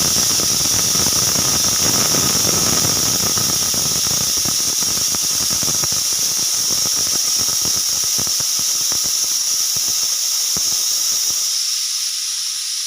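Pressure cooker whistle blowing: a loud, steady, high-pitched shriek of steam escaping under the weight, the sign that the cooker has reached full pressure. Underneath runs a rough, crackling rattle that thins out over the second half.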